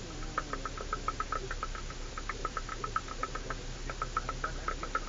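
Quick, irregular clicking and rattling, several times a second, from something loose inside a 4x4 jolting along a rough track, over a steady low drone of the engine and tyres.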